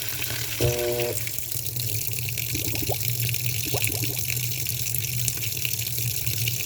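Washing machine filling with water: a steady rush of water with a low hum underneath, and a short tone about a second in.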